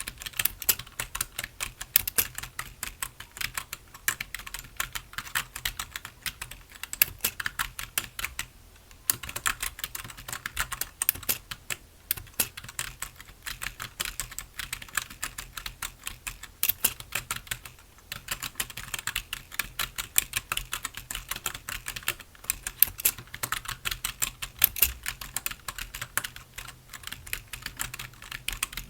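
Typing on a computer keyboard: a fast, continuous run of key clicks that pauses briefly about nine seconds in.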